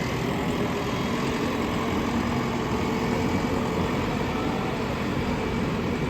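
Diesel engine of a JCB earthmoving machine running steadily with a continuous low rumble.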